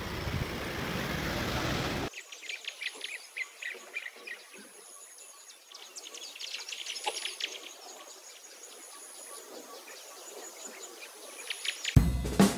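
About two seconds of steady street and traffic noise, then birds chirping in many quick short calls, with a faint high thin whine that comes and goes. Drum-kit music starts near the end.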